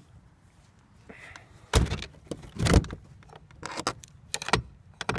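A shed door and its hanging padlock and latch being handled: two heavy thuds around two seconds in, then a run of sharp metallic clinks and clicks.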